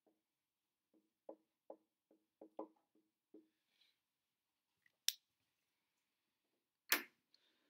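A quiet room with a run of soft, short knocks, then a single sharp click, and near the end a louder bump and rustle as the recording device is handled.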